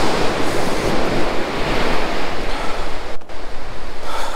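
Sea waves breaking on the beach in a steady rush, with wind buffeting the microphone; the sound drops out for a split second about three seconds in.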